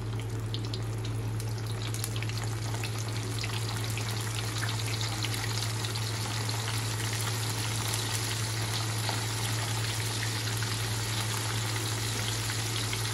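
Floured baby horse mackerel deep-frying in a pan of hot oil: a dense, steady sizzle full of fine crackles, thickening over the first couple of seconds as more pieces go in. A steady low hum runs underneath.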